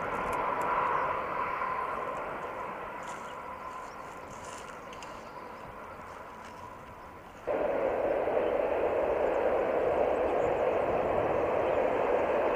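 Train running noise from an electric locomotive and its passenger coach passing at a distance, with a faint steady whine, fading away. About seven and a half seconds in, the sound changes abruptly to the louder, steady running noise of another electric locomotive on the line.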